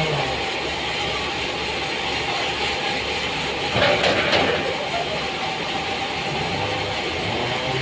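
Sawmill machinery running with a steady mechanical noise, and a louder, brighter burst about four seconds in.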